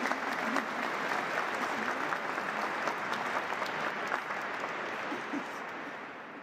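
Congregation applauding: a dense patter of many hands clapping that holds steady, then fades away near the end.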